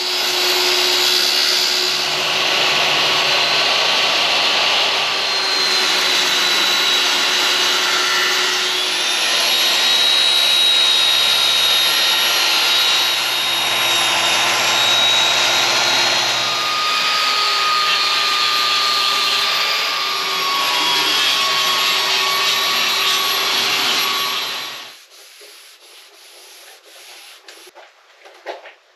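Circular saw fitted with an aluminum-cutting blade running and cutting through thin 0.040-inch (18-gauge) aluminum sheet: a loud, steady rasping noise with a high whine over it. It stops about 25 seconds in, leaving only light clicks and handling noise.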